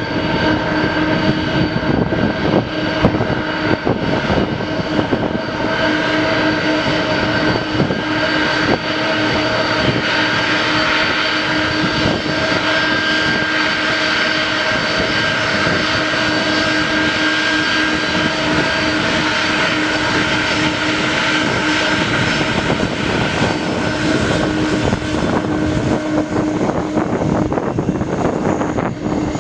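Jet engines of a Boeing 747-400 freighter running steadily: a continuous rush with several steady whining tones that neither rise nor fall.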